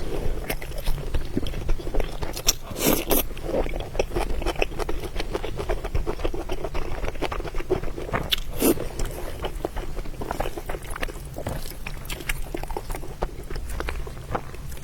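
Close-miked chewing and biting of food: a steady run of short wet clicks and crackles, with a few louder bites about three and nine seconds in.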